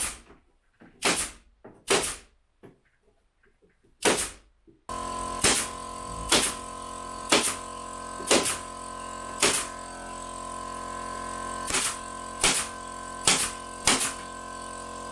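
Pneumatic nailer firing into plywood on a wooden frame, one sharp shot about every second. About five seconds in, a steady machine hum starts underneath the shots.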